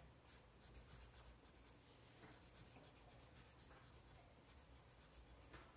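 Felt-tip marker colouring on paper in many quick, short strokes, faint.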